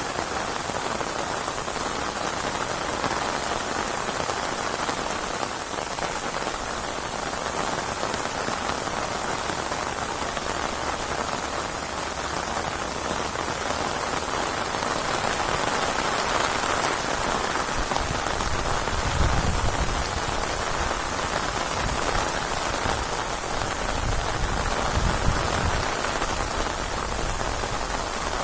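Steady rainstorm: rain falling in a continuous even hiss and patter. In the second half, two low rumbles come and go.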